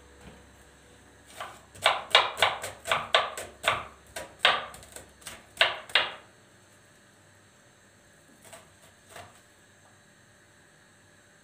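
Kitchen knife chopping on a plastic cutting board: about a dozen quick, uneven knocks starting just over a second in and stopping about six seconds in, then two faint taps.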